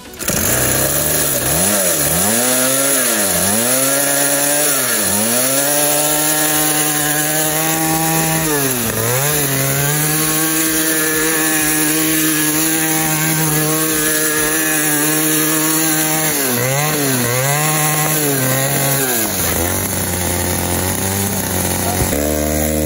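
49cc pocket bike's small two-stroke engine running on a test after its clutch plate was built up by welding. It is revved in a few quick blips, held at high revs for several seconds with one short dip, blipped again, then drops to a low idle near the end.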